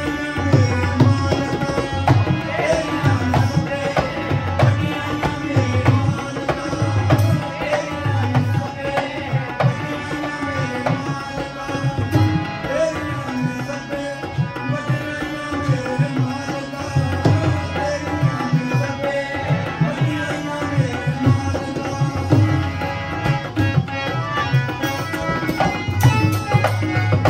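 Live Punjabi Sufi devotional music: a harmonium plays sustained, steady notes over a regular hand-drum rhythm.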